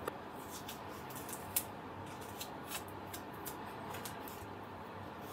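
Faint, irregular light clicks and ticks of metal tweezers and gloved fingers handling a small clear plastic model-aircraft canopy while its frame decals are laid on, the sharpest about a second and a half in. A steady faint hum lies underneath.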